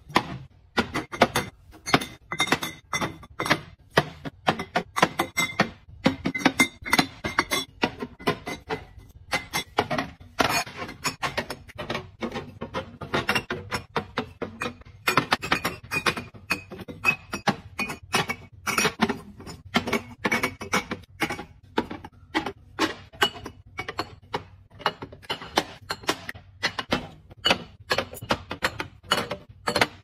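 Glass drink bottles clinking and knocking against each other and the refrigerator shelves as they are set in one by one: a steady run of sharp clinks, two or three a second, some ringing briefly.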